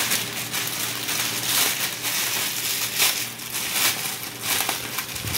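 Thin clear plastic clothing bags crinkling irregularly as hands handle them.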